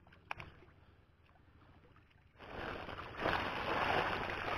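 A single soft click, then about two and a half seconds in water starts splashing and sloshing around the fish net, growing louder and running on steadily.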